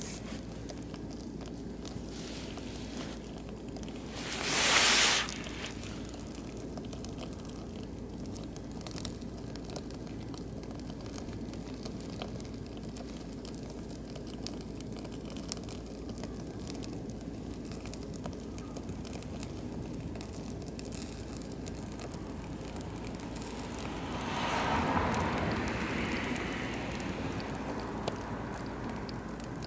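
Oak and beech logs burning in a barbecue grill, crackling steadily with scattered sharp pops. A loud rush of noise lasts about a second around five seconds in, and the sound swells a little again near the end.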